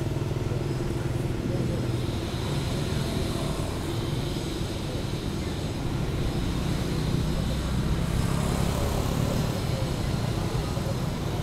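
Steady low rumble of a motor vehicle engine running without pause.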